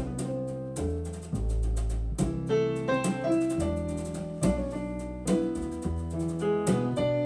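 Piano introduction of a slow jazz song, with deep bass notes under the chords, played back through Dynaudio Contour 1.3 SE hi-fi loudspeakers.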